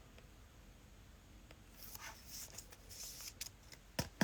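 Faint rustling and sliding of football trading cards being handled, followed near the end by a few short, sharp taps.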